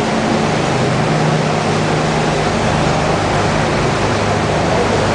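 A small passenger boat's engine running steadily, a low hum over a broad rush of water and wind. The hum shifts a little lower about halfway through.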